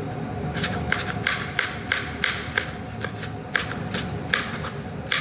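Kitchen utensils tapping and clicking in quick, irregular sharp strokes, about three a second, as when an egg omelette is being prepared.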